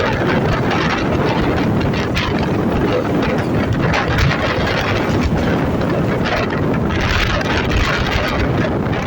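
ICF electric multiple unit (EMU) train passing close by at speed: a loud, steady rumble and rush of noise, with wind buffeting the microphone.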